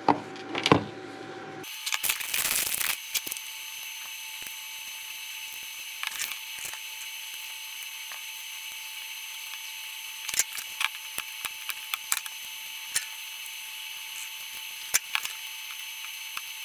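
Scattered light clicks and taps of a desoldering iron being worked against a circuit board's solder joints, over a steady hum with a faint high whine that starts about two seconds in.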